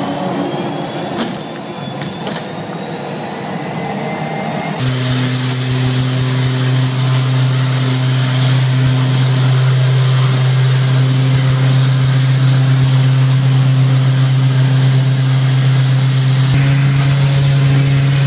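Mixed machine noise with a slowly rising whine and a few knocks, then, about five seconds in, a large engine starts a loud steady jet-like roar with a deep hum and a high whistle, stepping slightly higher in pitch near the end.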